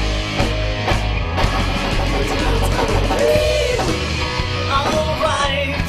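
Live rock band playing: electric guitars and drums with cymbals, and singing.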